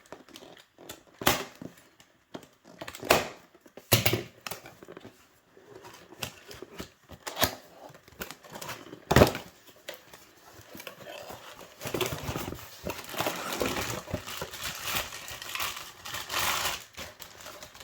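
A new faucet being unpacked from its box: several sharp knocks and clicks as the box and parts are handled, then about five seconds of plastic wrapping crinkling.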